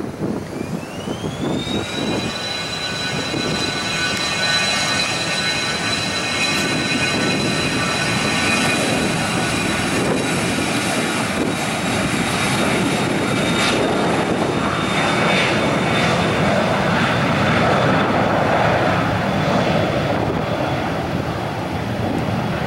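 A business jet's twin rear-mounted turbofans spooling up to takeoff power. A whine climbs in pitch over the first couple of seconds, then holds steady over a loud jet roar that builds a little toward the end.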